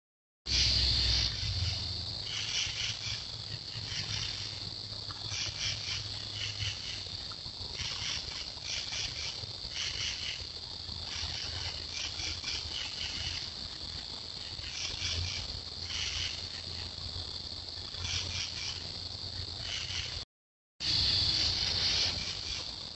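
Night insect chorus of crickets: a steady high trill with rhythmic pulses of chirping layered over it. The sound drops out for about half a second near the end.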